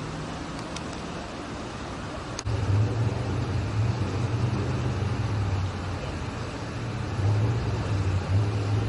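Steady low vehicle rumble over street noise, which jumps louder and deeper about two and a half seconds in.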